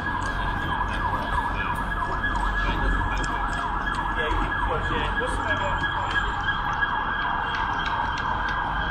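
Emergency vehicle siren wailing, its sweeping tones running steadily, over a low traffic rumble.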